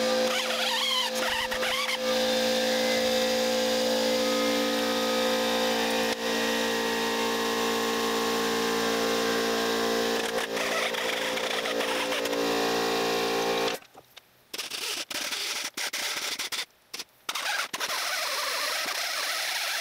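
Corded electric power tool, a grinder or drill, running at a steady pitch. About two thirds of the way through it stops, is pulsed on and off a few times, then runs steadily again.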